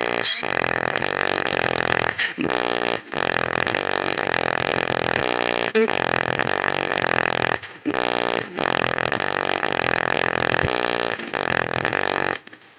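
Loudspeaker with a torn cone surround playing loud low sounds, its cone knocking and rattling with a rough, distorted buzz, the sign of the damaged surround. The sound stops briefly a few times and cuts off shortly before the end.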